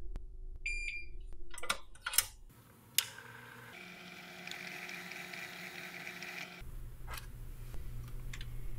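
A short electronic beep, a few sharp clicks, then a steady whirring tone with a high whine for about three seconds that cuts off abruptly.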